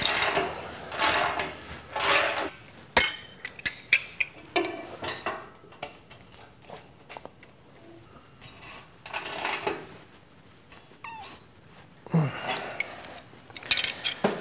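Hands working brass shims out from behind the steel bracket of a squat rack's pull-up bar: irregular rustling and scraping with scattered metallic clicks, a sharp click about three seconds in, and a few short squeaks.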